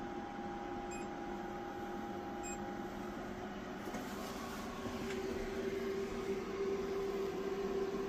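Solar inverter running under load: steady cooling-fan noise with an electrical hum. The hum grows a little louder about five seconds in as the load is raised toward 2000 watts.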